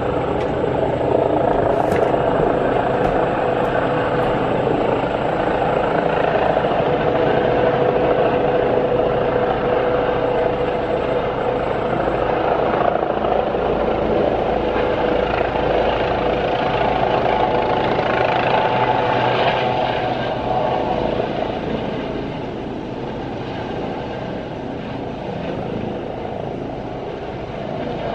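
Helicopter coming in to land, a loud steady rotor and engine drone with a low hum running through it, easing off a little about two-thirds of the way through.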